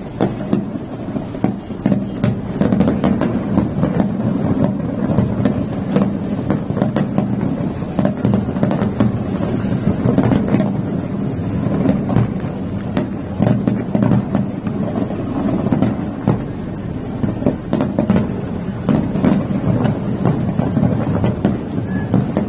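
Distant aerial fireworks going off in a dense, continuous run of bangs and crackles.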